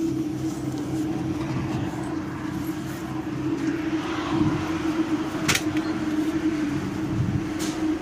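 Subway station ambience: a steady machine hum with a low droning tone, broken by a sharp click about five and a half seconds in and another near the end.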